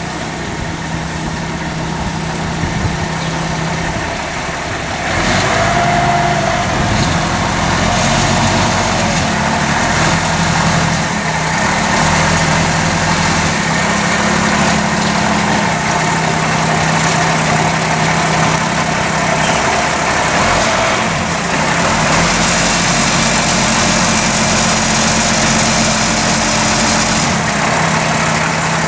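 A 15-inch gauge diesel locomotive's engine running steadily at low revs as it approaches slowly and draws up close alongside. It grows louder about five seconds in, with a brief high squeal around six seconds.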